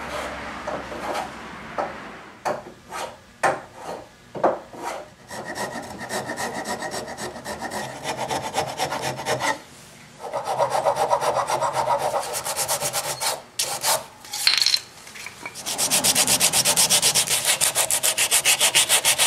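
Hand-filing wood: separate scraping strokes that quicken, shaping a new wooden bracket to match the curve of the desk's foot. From about three-quarters of the way through, rapid steady back-and-forth hand sanding of the same piece.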